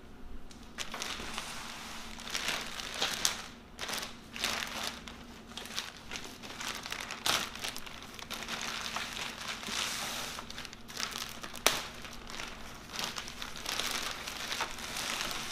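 Thin clear plastic bag crinkling and rustling as it is pulled up off a wooden tool chest, starting about a second in and going in irregular spurts.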